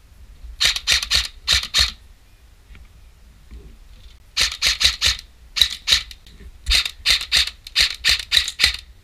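Quick crunching footsteps on rough ground, about four steps a second, in four short runs with pauses between them.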